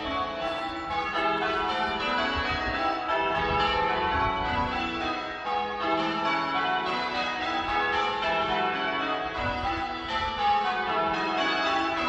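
Church tower bells of the Priory Church of St George ringing, many bells struck one after another in quick succession with their tones overlapping and ringing on.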